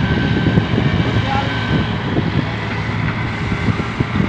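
Diesel engine of a Volvo EW130 wheeled excavator running steadily under load as it digs and swings its bucket.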